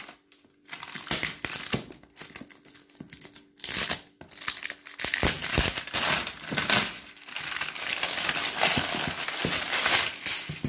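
Clear plastic shrink-wrap crinkling and tearing as it is pulled off a cardboard makeup-set box, in irregular bursts with a short lull near the start.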